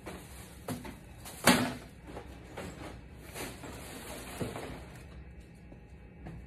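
Knocks and clatter of kitchen items being handled and set down on a counter, the loudest knock about a second and a half in.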